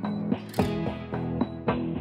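Background music led by a plucked and strummed guitar, its notes striking about once a second and ringing out.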